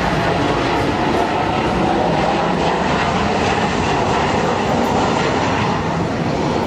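A Boeing 737-900ER's CFM56-7B jet engines heard from the ground as the airliner passes low on final approach with gear down: steady, loud jet noise.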